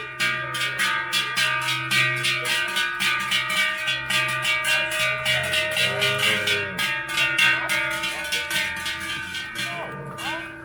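Large Swiss cow bells clanging together in a fast, even rhythm, their ringing tones overlapping, fading a little near the end.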